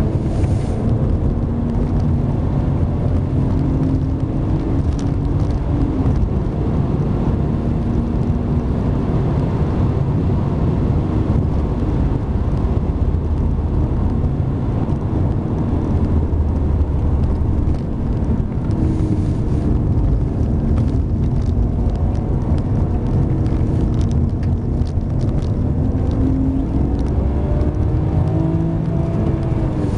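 Car engine heard from inside the cabin under hard driving, its pitch climbing and dropping again and again, over a steady low road and tyre noise.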